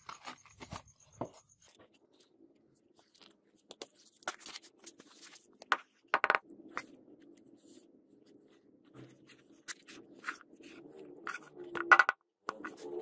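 Hands packing loose grit into a wooden box around a bill hook blade: gritty scraping and crunching with irregular clicks, loudest about six seconds in and near the end, over a faint steady low hum.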